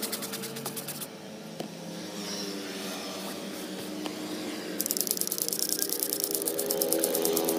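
Background music: a melody with a fast, even ticking beat on top, which drops out about a second in and comes back at about five seconds.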